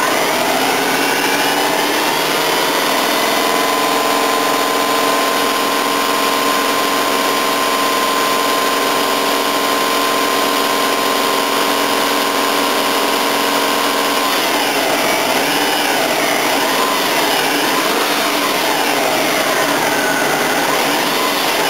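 Subaru engine running hot, held at a steady speed, then revved up and down several times from about 14 seconds in. The owner suspects a blown or cracked head, since the car keeps getting airlocks in its cooling system.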